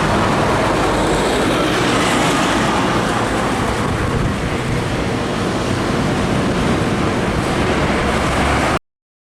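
Heavy trucks passing on the highway, a steady loud rumble and tyre-and-wind rush that cuts off suddenly near the end.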